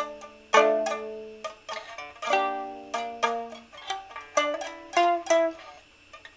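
Solo improvised instrumental music: chords and short runs of sharply attacked notes that ring and fade, with a brief pause near the end.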